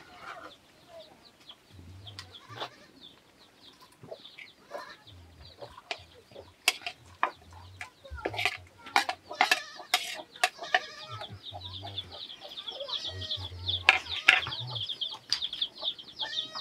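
Chickens clucking, with many sharp knocks and clatters. A dense high-pitched chatter comes in over the last few seconds.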